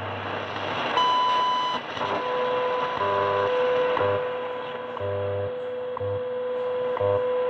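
WWV shortwave time signal on 10 MHz, played through a portable receiver's speaker over static. About a second in comes a 1000 Hz tone lasting under a second, the minute marker. Then a steady 500 Hz tone begins, with a tick every second and the low pulsing hum of the 100 Hz time code.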